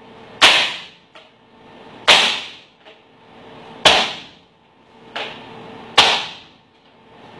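Baking tray of piped pistachio macaron shells rapped down on the counter: four sharp bangs about two seconds apart, each dying away quickly, with a fainter knock between the last two. Rapping the tray knocks air bubbles out of the piped batter.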